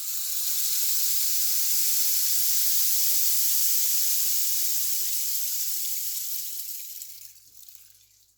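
Sea surf: a wave breaks and its foam washes up the shore in a long hiss, then fades away as the water draws back near the end.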